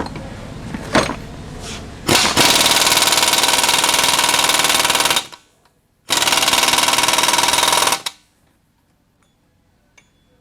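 Impact wrench hammering on a Loctite-locked nut of a Volkswagen 002 bus transmission in two long runs, about three seconds and then about two seconds, with a short stop between, trying to break it loose. Some lighter clatter of tools comes before.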